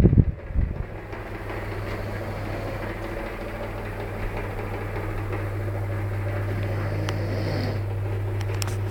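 A loud low rumble fades out in the first second, then a steady low mechanical hum carries on, with a few faint clicks near the end.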